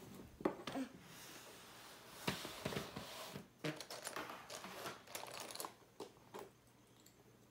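Loose plastic LEGO bricks clattering and rustling as a hand rummages through a bin full of them, a dense rattle for the first few seconds, then scattered clicks that die away near the end.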